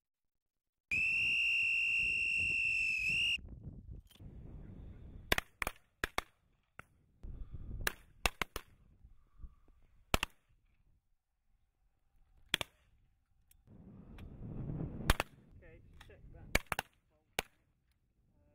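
A whistle blown once, a steady note held about two and a half seconds, followed by shotgun shots at clay targets, some single and some in quick pairs.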